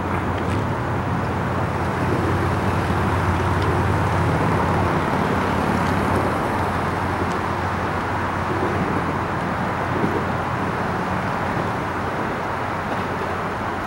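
Steady road-traffic noise that swells a little in the middle and eases toward the end, with a low engine hum under it for the first few seconds.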